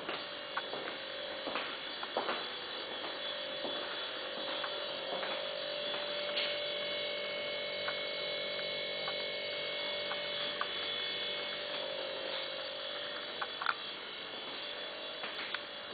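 A steady electrical hum at one pitch with higher overtones, holding level while the camera moves from room to room, with scattered soft clicks and knocks over it.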